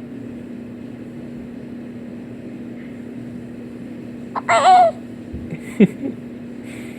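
A baby hiccuping with squeaky, rubber-chicken-like hiccups: a high wavering squeak about four and a half seconds in, then a sharp shorter hiccup falling in pitch near six seconds.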